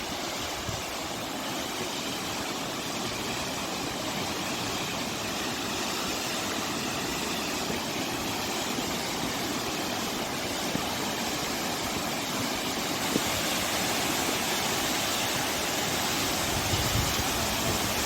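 Steady rush of flowing water, a stream or small waterfall, growing gradually louder.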